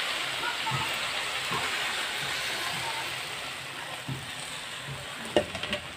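Hot pan sizzling as coconut milk is poured in over shredded taro leaves, the hiss slowly dying down. A few sharp knocks about five seconds in.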